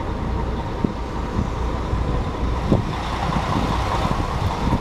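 Steady low rumble of motor traffic, with a couple of light knocks.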